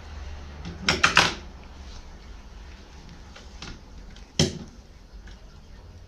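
Sharp knocks or taps: a quick cluster of three or four about a second in, then a single one at about four and a half seconds, over a low steady hum.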